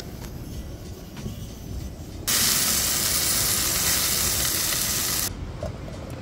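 Steak sizzling in a hot pan, a loud steady hiss that starts abruptly about two seconds in and cuts off about three seconds later, over a low steady rumble.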